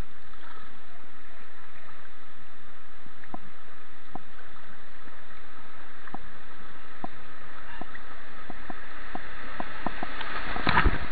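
Rushing white water of a small river rapid as a kayak is paddled through it, with scattered short splashes and knocks that grow busier towards the end and peak in a louder splash burst just before it ends.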